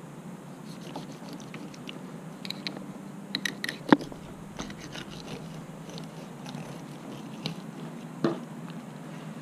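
Fillet knife cutting through a sockeye salmon behind the head and along the backbone, crunching and scraping as the blade passes through bone. A sharp click comes about four seconds in and another near the end.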